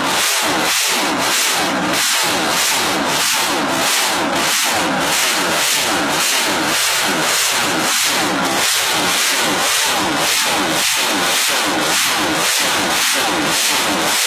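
Honda CBX six-cylinder motorcycle engine running steadily, loud and rough-edged, with a pulse about two to three times a second.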